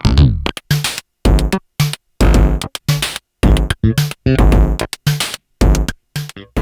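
Sonic Potions LXR-02 drum machine playing an uneven electronic beat: short, abruptly cut-off hits with silence between them, some with a deep kick and some with a pitched tone.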